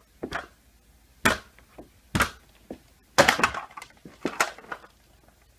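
A metal desk lamp thrown into a row of paper bags on a carpeted floor and then handled: a string of separate knocks and paper crunches, the loudest about a second in.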